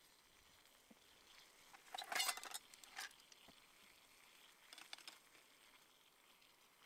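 Light metallic clinks and rattles from an aluminium camping stove cookset heating water: a cluster about two seconds in, the loudest, another near three seconds and a smaller one near five, over a faint steady hiss.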